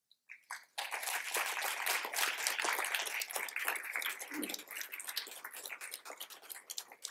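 Audience applauding, the clapping starting about a second in and thinning out toward the end.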